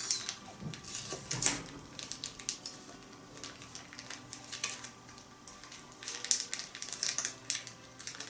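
Light clicks and clatter of utensils against a small iron pot, in clusters about a second in and again from about six seconds in.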